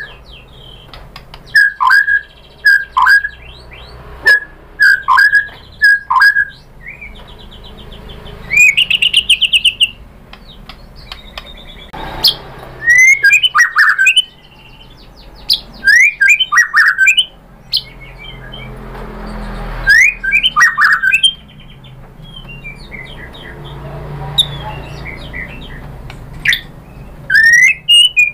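White-rumped shama (murai batu) singing a loud, varied song. It opens with a run of short down-slurred whistles repeated in quick pairs, then mixes phrases of rapid trills and chatters, broken by short pauses.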